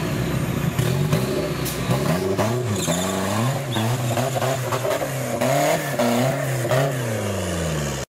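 Off-road 4x4's engine revving up and down again and again in short bursts under load as it claws up a muddy bank, with a few sharp knocks.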